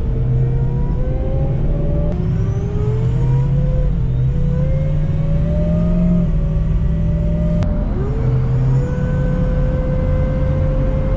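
2003 Ford F350 Super Duty 6.0 L diesel accelerating, its pitch climbing and dropping back at gear shifts about two and eight seconds in, with the turbo's rising whistle above the engine. No whine from the power steering: the new OEM pump is running quietly.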